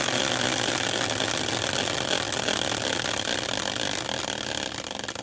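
Sticker-covered caster wheel spun by hand, whirring and rattling on its axle in its metal bracket as it spins down. It slowly gets quieter, and near the end the whir breaks up into separate ticks as the wheel slows to a stop.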